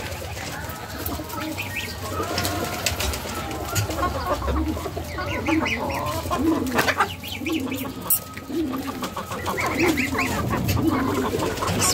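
Backyard poultry calling: soft, arched low calls repeat about once a second from about halfway through, mixed with short high peeping chirps from the young birds.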